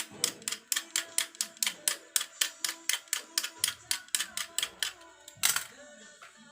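Rapid, evenly spaced sharp clicks, about four a second, ending with one louder click about five and a half seconds in, over faint background music.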